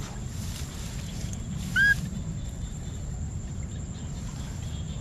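A single short, high whistle about two seconds in, rising briefly and then held, over a steady low rumble of open-air background noise.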